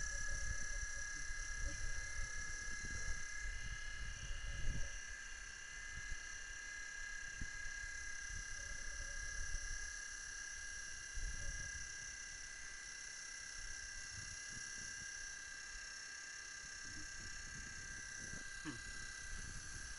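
Insects calling steadily outdoors, several unchanging high tones held throughout. Under them is low, gusty wind rumble on the microphone, strongest in the first five seconds.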